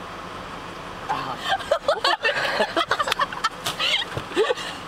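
People giggling and laughing in short bursts, starting about a second in, over a steady low hum inside the car.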